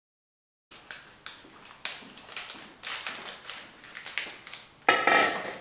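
Irregular light taps and clicks that begin after a moment of silence, with a louder, longer clatter near the end.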